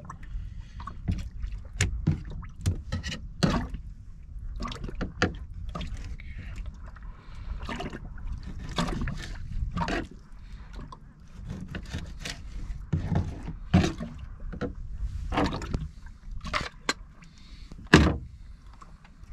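A knife cutting mackerel into bait on a plastic bait board: irregular knocks and taps, with one sharp knock near the end, over a steady low rumble.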